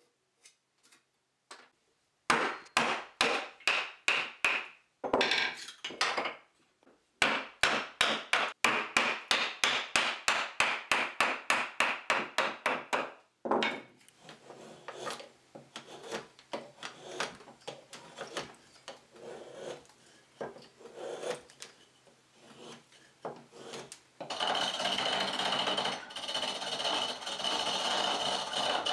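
Hand woodworking on a chisel handle. First, rapid, evenly spaced strokes of a hand tool on wood, about four or five a second, with a short break, then quieter, irregular scraping and paring cuts. Near the end, a treadle lathe turns with a tool cutting the spinning wooden blank: a steady shaving sound with a thin high tone.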